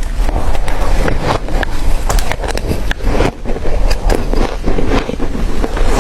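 Close-miked chewing of crunchy ice: a dense, continuous run of sharp cracks and crunches as the ice is bitten and ground between the teeth.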